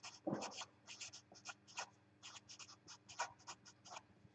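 Black Sharpie felt-tip marker writing on paper: a quick run of short, faint scratchy strokes as letters are drawn.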